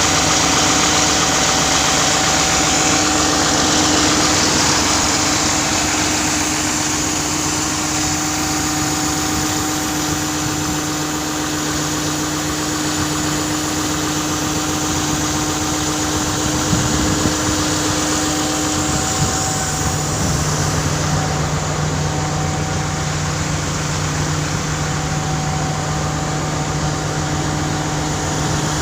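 Oil well rig machinery running steadily while a Bowen mill drills out cement in the wellbore, a loud mechanical hum with noise over it. The pitch of the hum shifts about two-thirds of the way through.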